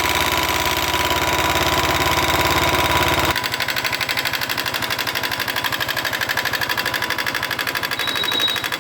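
Royal Enfield Electra 350's single-cylinder four-stroke engine idling with a steady, even beat; about a third of the way in the sound abruptly loses its deep part while the beat carries on. A new oil filter has just been fitted and oil is reaching the top end again, so the tappet tapping it had is said to be gone.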